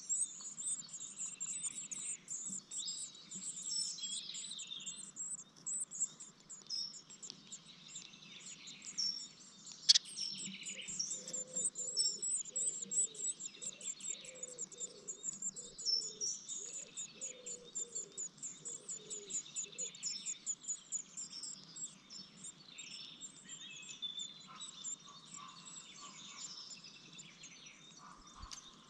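Blue tit nestlings begging with a parent in the nestbox: a dense, continuous stream of thin, very high-pitched cheeps. A single sharp knock sounds about ten seconds in.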